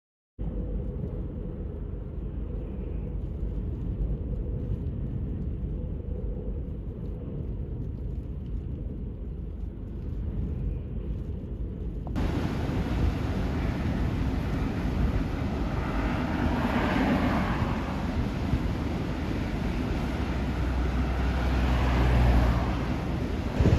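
Strong wind buffeting the microphone in a snow squall, a steady low rumble. About halfway through it changes suddenly to a brighter, fuller rush, and swells for a moment a few seconds later.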